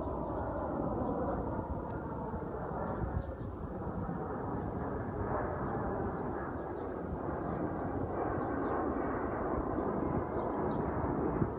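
Jet airliner taking off at full engine power close by, a steady noisy roar of the engines.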